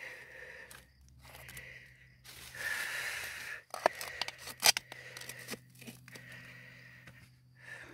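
A metal tool scraping and gouging into crumbly quartz-vein rock and soil, with a louder stretch of scraping about two and a half seconds in. A few sharp clinks of metal striking stone follow between about four and five seconds in, the loudest sounds here.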